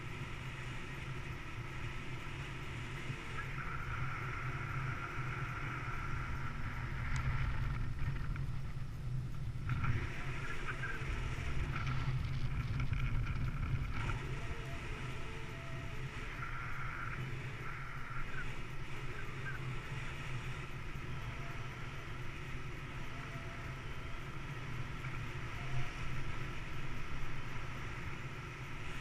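Wind rushing over the camera microphone during paraglider flight: a continuous low rumble, with a fainter higher whistle that swells and fades several times.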